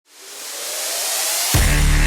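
Electronic intro music: a rising hiss swell builds up from silence, then a heavy bass beat drops in about a second and a half in.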